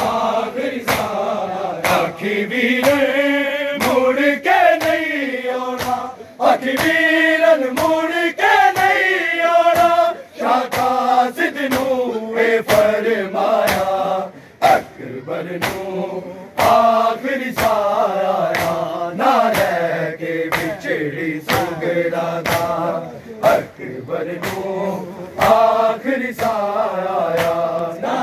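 A crowd of men chanting a noha (Shia mourning lament) in a wailing melody, with a steady rhythm of sharp slaps from open hands beating on bare chests (matam) keeping time.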